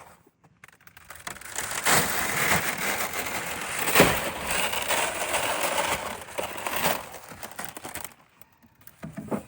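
Dry horse feed poured from a bag into a feed tray: a steady rustling, rattling pour lasting about seven seconds, with a couple of knocks about two and four seconds in.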